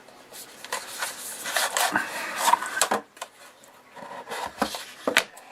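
Product packaging being handled and opened: rustling and rubbing for about three seconds, then a few sharp clicks and knocks, the sharpest near the end.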